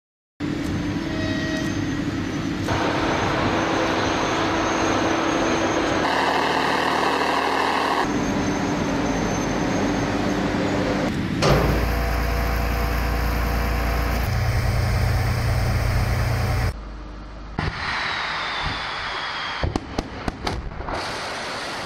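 Roar and rumble of Sarmat strategic missile launches from a silo, in a string of edited clips whose sound changes abruptly several times. There is a heavy low rumble in the middle and a run of sharp bangs near the end.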